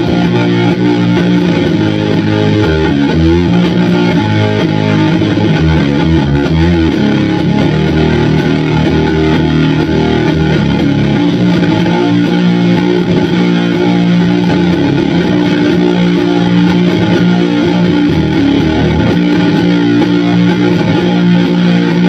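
Electric guitar through a Doppelganger Effects Brazen Bull one-knob fuzz pedal, with the guitar's volume knob rolled back to about half to clean up the fuzz. A choppy riff runs for the first several seconds, then gives way to long held, fuzzy chords.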